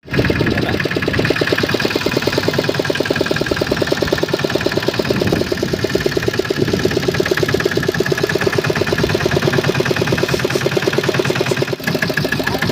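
Fishing boat's engine running steadily at idle, a rapid even pulsing.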